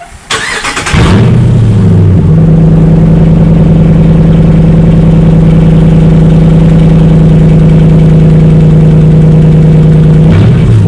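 Ram 1500 pickup engine started with its muffler removed (muffler delete): the starter cranks briefly, the engine catches about a second in with a flare of revs, then idles steadily and loud through the open exhaust. Near the end it is revved, the pitch rising.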